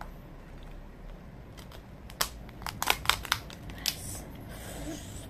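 A cooked crab's top shell being pried off by hand: a quick run of sharp cracks and snaps lasting under two seconds, starting a little before the middle.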